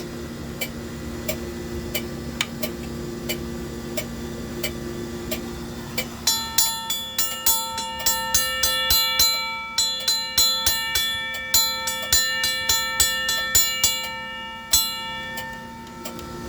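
Railroad crossing signal flasher relay clicking steadily about every two-thirds of a second over a low hum. About six seconds in, a railroad crossing bell starts ringing, its hammer striking the gong rapidly and a little unevenly; the strikes stop near the end and the ring fades.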